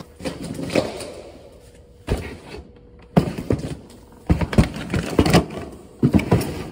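Cardboard boxes and a shrink-wrapped pack of plastic soda bottles being set down and moved on a tiled floor: irregular thuds and knocks, in about five clusters.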